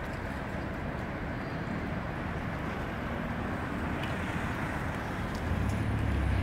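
Steady outdoor city noise with a low engine-like rumble that grows louder about five and a half seconds in.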